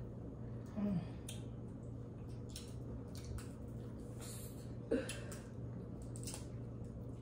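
Eating a Cajun seafood boil with the hands: wet squelching and scattered sharp clicks of seafood shells being worked open, with chewing. There are two short murmured sounds, about a second in and about five seconds in.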